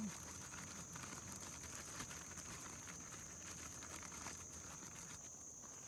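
Fish pieces shaken in a closed bag of breading: a soft, irregular pattering rustle that dies down near the end.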